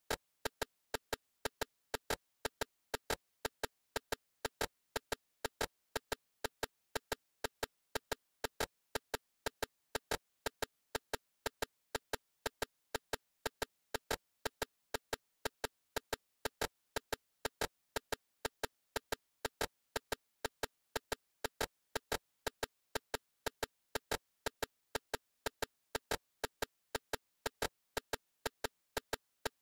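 Steady, evenly spaced clicking, roughly three sharp clicks a second with silence between them.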